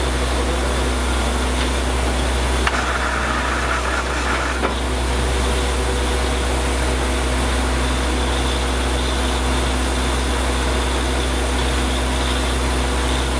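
Truck-mounted borewell drilling rig running steadily, a deep engine hum under a rushing noise as water is blown out of the bore. About three seconds in a sharp knock starts a brief higher hiss, which ends with another knock about two seconds later.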